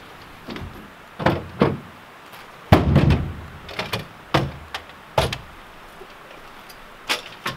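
Pickup truck cap's rear window clicking open, then the tailgate being dropped with a heavy clunk about three seconds in, the loudest sound. Several knocks follow as a folding step ladder is pulled from the truck bed and set down.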